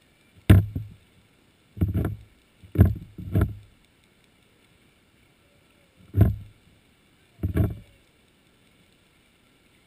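Six short, dull low thumps picked up underwater, coming irregularly with gaps of silence between them.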